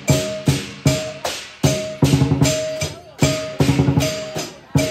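Teochew lion dance percussion: a drum beating quick strokes under crashing cymbals that strike in an even beat, about two to three times a second.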